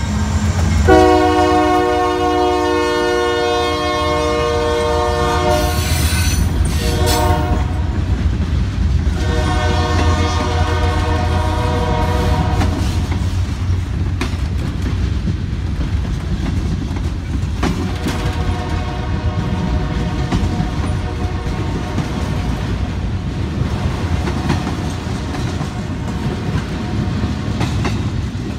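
Freight train rolling past with a steady rumble and clatter of wheels on the rails. Over it, the Union Pacific locomotive's multi-tone air horn, now further down the line, sounds a long blast, a short one and another long one, then a fainter long blast later on.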